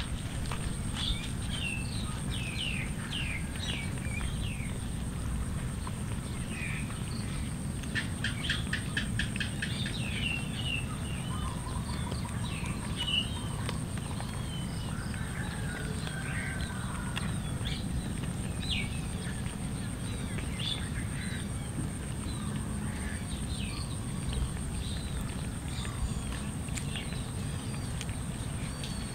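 Small birds chirping on and off over a steady low outdoor rumble, with one quick rattling trill about eight seconds in.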